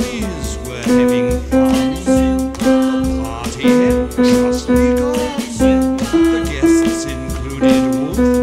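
Heintzman upright piano playing a simple tune of short notes, about two a second, mostly repeating one pitch with a few steps up or down.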